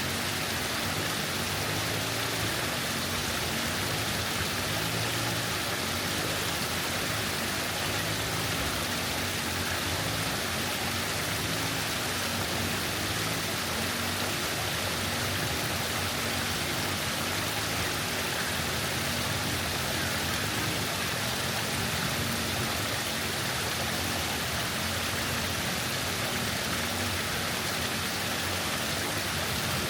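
Waterfall rushing steadily, water pouring and splashing in an even roar with a shifting low churn underneath.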